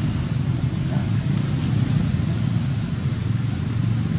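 Steady low rumble of wind buffeting the microphone, with a faint short squeak about a second in.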